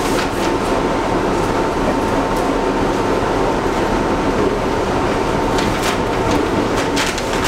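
Interior of a moving R62A New York City Subway car: the steady rumble of the car running through the tunnel, with a thin steady hum over it. Wheels click sharply over rail joints a few times, mostly near the end.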